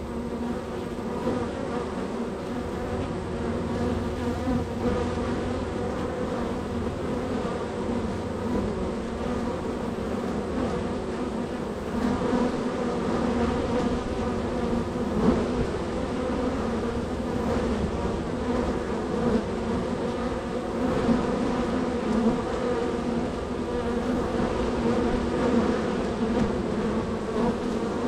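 Steady buzzing hum of a very active honey bee colony at the hive entrance, many bees flying in and out.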